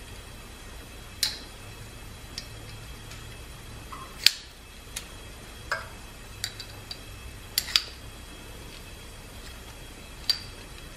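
Light metallic clicks and taps of steel stone holders and abrasive stones knocking together as new 70-grit stones are fitted into an engine cylinder hone by hand. About a dozen scattered clicks, the loudest a little past four seconds in, over a low steady hum.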